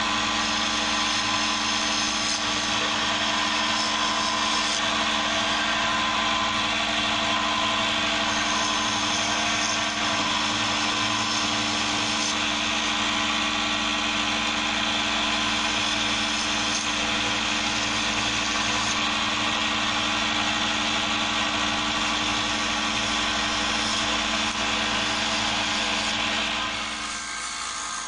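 Electric motor of a multifunction benchtop woodworking planer running steadily with a constant hum and a dense whirring hiss; it gets quieter near the end.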